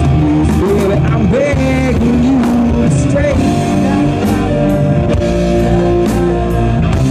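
Live rock band playing an instrumental passage, electric guitars over drums.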